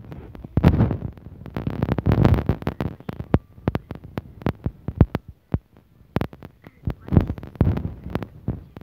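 Phone microphone handling noise: irregular thumps, knocks and rubbing as the handheld phone is moved about, dull and low.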